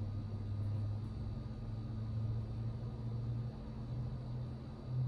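A steady low hum, wavering slightly in level.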